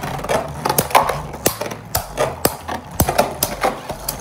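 Emperor Forneus and Z Achilles Beyblade Burst Turbo tops spinning in a plastic stadium. Their metal-heavy layers clash again and again in a run of sharp clacks, several a second.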